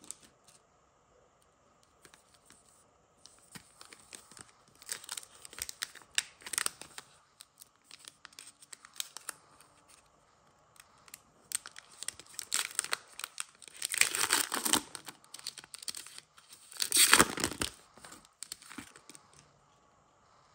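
Foil trading-card pack crinkling in the hands and being torn open by hand, with two louder rips in the second half.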